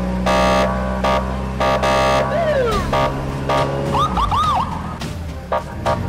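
Police car siren sounding in short repeating blasts, with a few quick rising-and-falling warbles about four seconds in, over a steady low hum.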